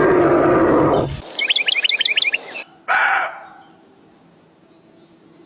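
A loud rough call for about the first second, then a quick run of about a dozen short, falling bird chirps. A brief call follows near three seconds in, then only faint background.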